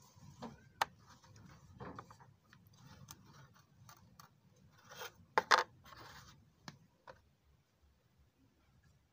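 Hands working cardboard and small parts by hand: scattered rubbing, scraping and sharp clicks, loudest about five and a half seconds in, then it goes quiet.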